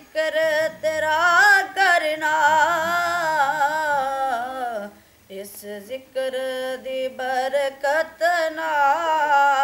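A boy singing a Punjabi naat unaccompanied, his solo voice holding long, wavering, ornamented notes. The voice breaks off briefly about five seconds in, then resumes.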